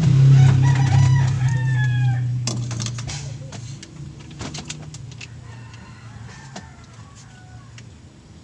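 A rooster crowing about half a second in, one call of about two seconds that falls in pitch at the end, over the low steady engine sound of a passing vehicle that fades away over the next few seconds. A few sharp clicks follow around the third second.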